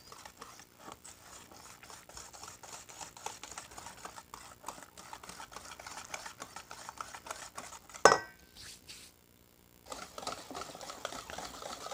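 Wire whisk beating eggs, sugar and oil in a mixing bowl for cake batter: a fast, continuous patter of whisk strokes against the bowl. A louder clink comes about eight seconds in, then a short pause before the beating goes on.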